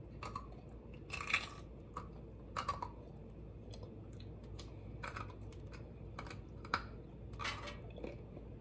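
Graham cracker being bitten and chewed with the mouth close to the microphone: a scatter of short, irregular crunches.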